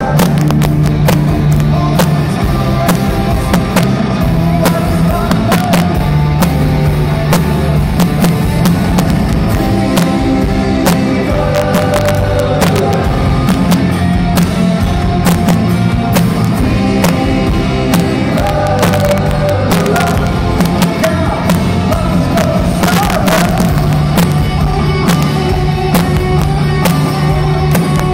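Rock band playing live and loud, with drums hitting steadily over a sustained bass line.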